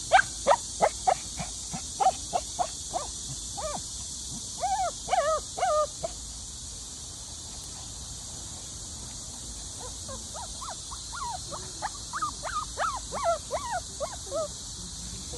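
Shih Tzu yapping in quick, sharp yelps, then, after a pause of a few seconds, whining and squealing in wavering cries: the dog is excited at the sight of a deer.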